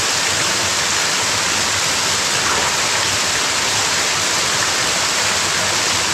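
Small waterfall spilling over rocks into a stream: a steady, fairly loud rush of water.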